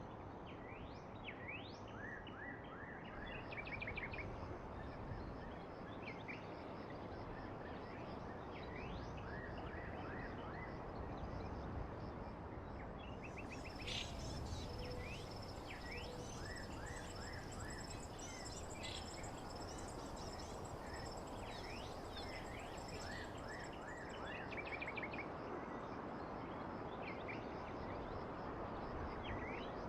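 Songbirds chirping over a steady hiss of rain: many quick sweeping chirps, with a high thin trill joining in from about 13 to 23 seconds in.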